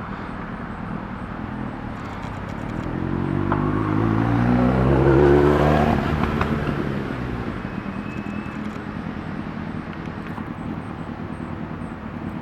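A motor vehicle drives past: its engine grows louder, passes about five to six seconds in with its pitch bending down, then fades away over a steady outdoor background hum.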